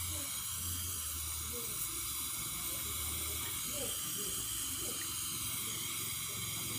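LPG-oxygen welding torch flame hissing steadily as it heats copper to melting.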